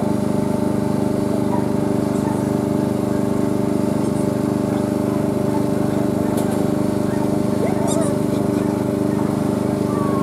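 A small engine running at a steady speed: a continuous, even drone.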